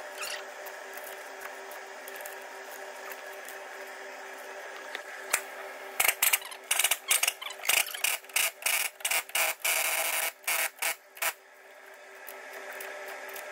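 Hand ratchet being worked on the leaf-spring U-bolt nuts, giving a quick run of sharp clicking strokes, two or three a second, with a longer scraping stretch partway through. A steady hum runs underneath.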